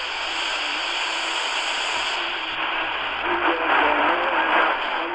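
Shortwave static and hiss from a Tecsun PL-310ET portable radio's speaker as its DSP bandwidth is switched from 1 to 2 kHz. A weak station's audio fades back in faintly under the noise about three seconds in.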